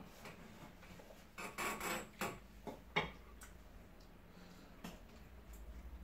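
Close-up eating by hand: chewing and mouth smacks, with fingers rustling through food and leaf wrappings. The sound is scattered clicks and short rustles, busiest about one and a half to two seconds in, with a sharp click around three seconds.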